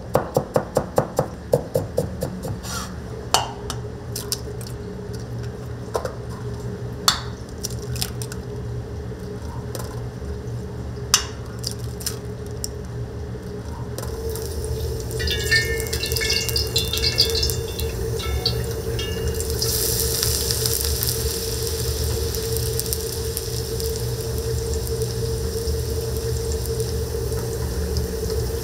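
Commercial kitchen sounds: a quick run of sharp taps, about four a second, in the first couple of seconds over a steady low rumble, then running water from a tap, growing louder about two-thirds of the way in.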